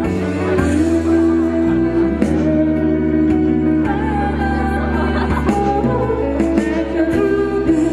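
Vocal group singing live through microphones, holding sustained harmony notes over a steady low bass.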